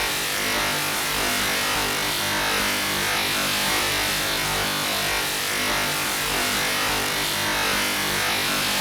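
Atari 8-bit POKEY sound chip putting out a steady noisy, buzzing drone, the soundtrack of a 64-byte intro, unchanging throughout.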